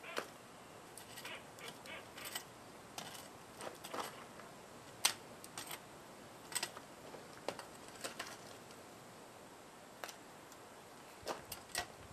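Long steel tongs clinking and scraping against broken refractory crucible pieces and the slag crust on a firebrick mold. They make irregular sharp knocks and clicks, a few per second at most.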